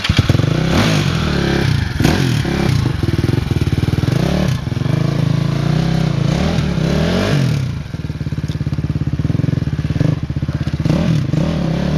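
Dirt bike engine revving up and down over and over as it works through slippery rock, with a few clattering knocks.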